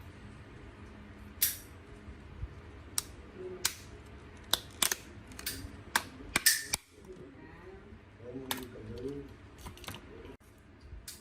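Irregular sharp clicks and snaps of small tools and phone parts being handled during repair, about a dozen, loudest in the middle.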